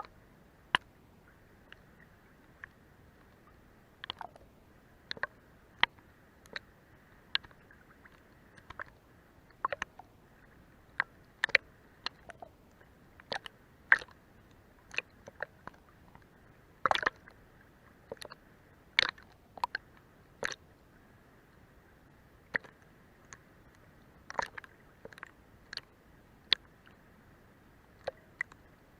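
Sea water lapping under a boat's hull: irregular small slaps and clicks, with short pauses between them, over a faint steady hiss.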